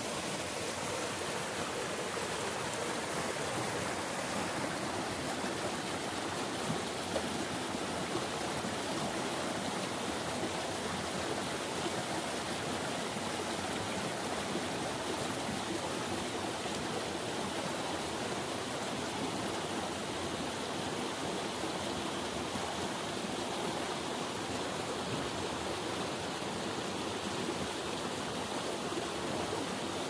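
Turbulent, shallow stream rushing over stones and small rapids: a steady, even water noise that does not change.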